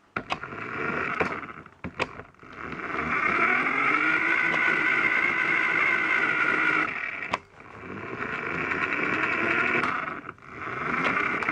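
Toy remote-control car's small electric motor and gears whining in three runs, the pitch rising and falling with its speed, with a few sharp knocks as it bumps along.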